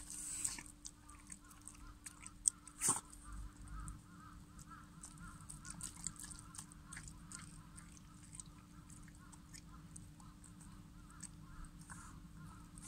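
Shiba Inu puppy eating soft food from a bowl: quick licking and smacking clicks, with two louder clicks about two and a half and three seconds in. Birds call faintly in the background.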